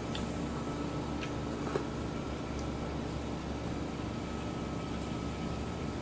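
A steady machine hum in the room, with a few light clicks of chopsticks against a bowl as the noodles are stirred, the sharpest a little under two seconds in.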